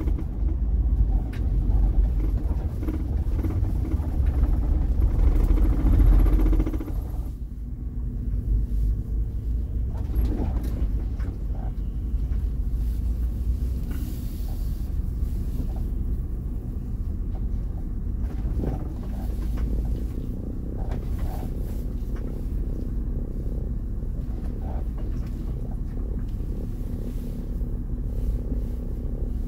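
A vehicle engine running under load as it climbs onto a ferry's car deck, with a loud low rumble that drops off suddenly about seven seconds in. After that, a steady low hum fills the ship's enclosed car deck, with a few faint knocks.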